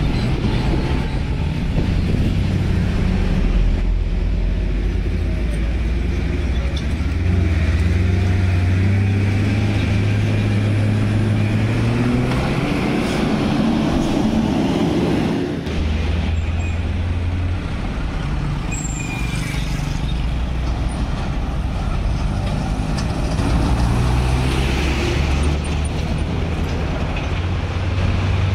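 Road traffic passing close by: cars, a light truck and motorcycles driving past one after another with their engines running, the low engine sound shifting as each vehicle comes and goes.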